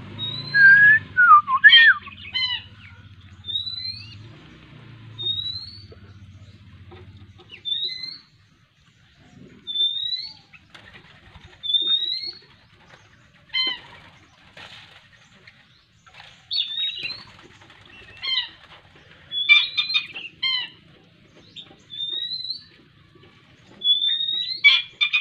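A downy raptor chick begging for food with short rising calls, about one every one and a half to two seconds, mixed with clusters of sharper chirps. A faint low hum runs under the first several seconds.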